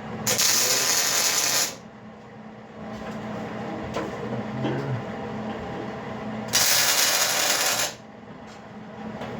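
Two short tack welds, each about a second and a half of crackling welding arc, the second about six seconds after the first, tacking the bent bucket plate to the steel welding table.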